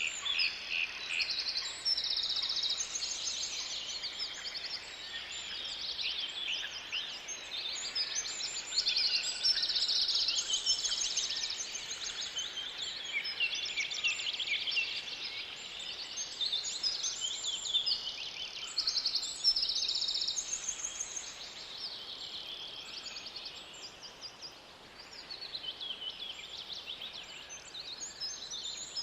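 Several birds singing at once, a dense chorus of overlapping high trills and chirping phrases that never stops.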